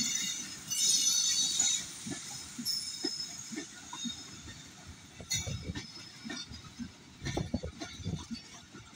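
Pakistan Railways passenger coaches rolling past as the train comes onto the loop line. The wheels give a high squeal in the first two seconds and briefly again about three seconds in. After that come irregular clanks and knocks of wheels over the rail joints.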